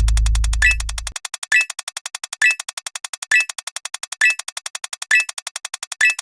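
Electronic synth sound effects: a fast, even stream of short clicks at about ten a second, with a louder pitched blip about once a second. A loud, deep synth note fades and stops about a second in.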